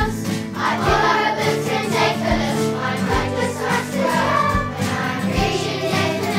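Background music: a song with voices singing together over a steady beat.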